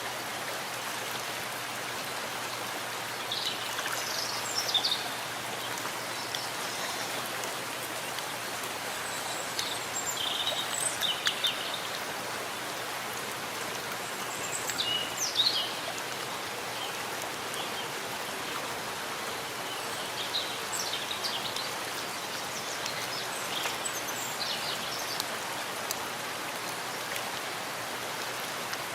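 Steady rain falling in a forest, an even hiss. A bird sings short phrases of high chirps over it about five times, at intervals of several seconds.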